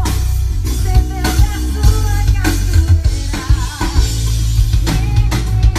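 Loud band music: a drum kit over a heavy bass line, with sustained pitched tones on top.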